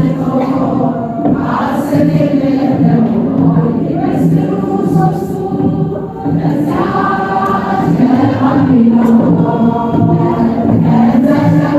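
A women's choir singing an Ethiopian Orthodox hymn together, the voices holding each note for about a second before moving on, with a few faint sharp hits scattered through.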